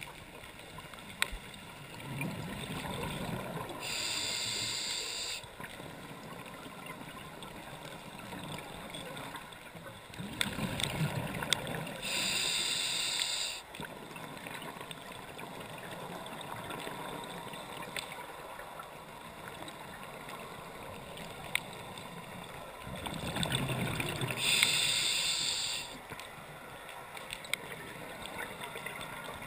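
A scuba diver breathing through a regulator underwater. There are three breaths about ten seconds apart. Each is a low bubbling rumble followed by a hiss of air through the regulator.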